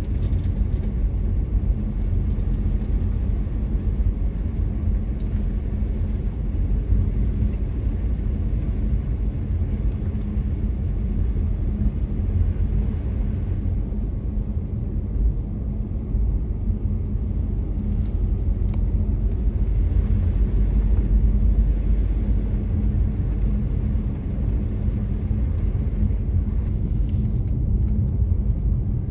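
Steady low rumble of a car driving, engine and road noise with a constant low hum.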